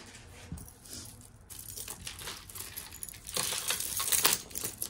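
Costume jewelry being handled: metal chains and beads clicking and clinking against each other, with some rustling. The clatter grows busier a few seconds in.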